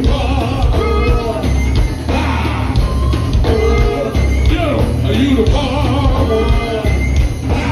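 Live go-go band playing loud, with a heavy pulsing bass and drums under a lead vocal on the mic.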